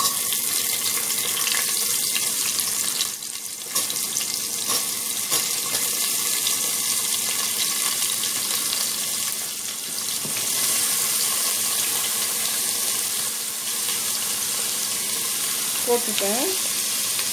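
Chopped onions and tomatoes sizzling steadily in hot oil in a pressure cooker, an even hiss that dips briefly about three seconds in.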